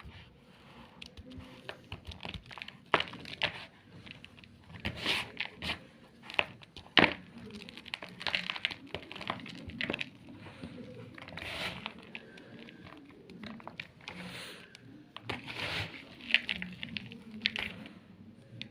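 Gym chalk (magnesium carbonate) being crushed and crumbled, in irregular runs of crunching and crackling. A few sharp snaps stand out, the loudest about seven seconds in.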